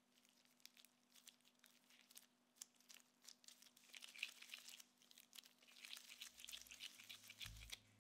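Faint crinkling and soft sticky clicks of disposable-gloved hands pressing and rolling soft cookie dough into a ball, growing busier about halfway through.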